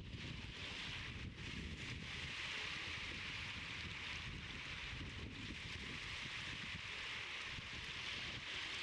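Wind buffeting the microphone, a low rumble over a steady high rushing hiss.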